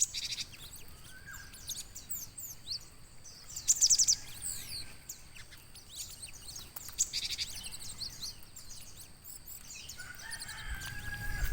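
Several small gelatik birds chirping. Short sliding high calls come throughout, with louder bursts of rapid chattering notes at the start, about four seconds in and about seven seconds in.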